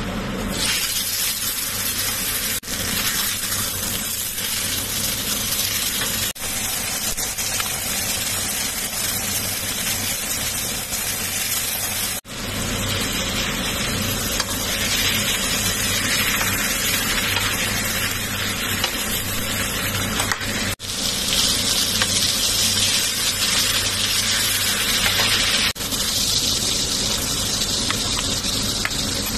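Bone-in steak frying in hot butter and oil in a cast-iron skillet: a loud, steady sizzling hiss that cuts out for an instant a few times.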